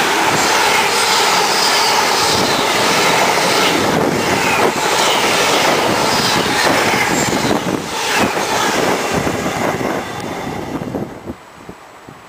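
Freightliner intermodal container wagons passing close by at speed: loud wheel-on-rail noise with rapid clacks over the rail joints and a thin high squeal now and then. The noise drops away about a second before the end as the train clears.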